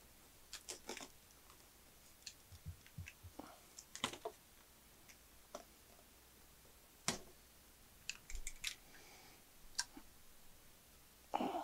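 Sealed cardboard box being opened by hand: scattered faint clicks, taps and short scrapes and rustles of cardboard.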